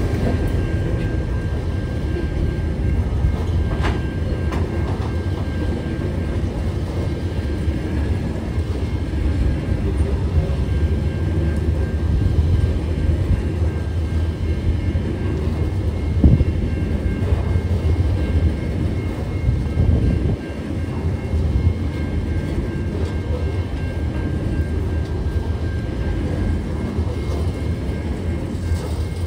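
Coal train's hopper wagons rolling past at close range: a steady low rumble of steel wheels on rail, with a single louder knock about halfway through.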